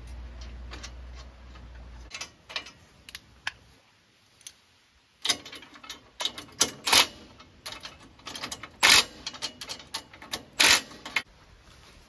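Irregular metallic clicks and clanks from bolts, nuts and washers being handled and fitted by hand onto a steel sawmill frame bracket. There are a few clicks, a short pause, then a busy run of louder clanks in the second half. A low hum in the first two seconds cuts off abruptly.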